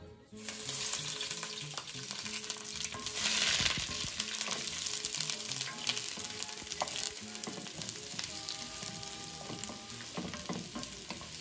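Sliced onion sizzling in hot oil in a glazed clay cazuela, stirred with a wooden spoon that scrapes across the pot. The sizzle begins about half a second in.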